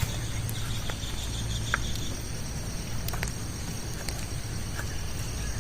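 Insects chirring steadily at a high pitch over a low, steady rumble, with a short trill in the first two seconds and a few scattered sharp ticks.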